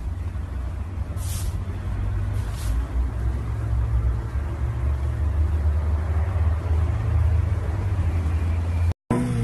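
A low, steady rumble with three short hisses in the first three seconds; it breaks off suddenly near the end.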